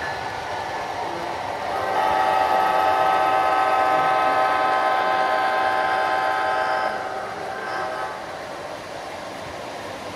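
O gauge model Amtrak diesel locomotive's sound system blowing one long chime horn blast, starting about two seconds in and lasting about five seconds, over the steady running sound of the train rolling by.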